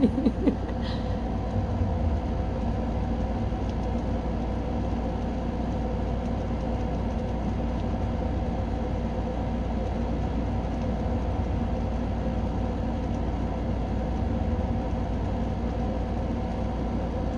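Air conditioner unit running: a steady low hum with a few faint constant tones above it.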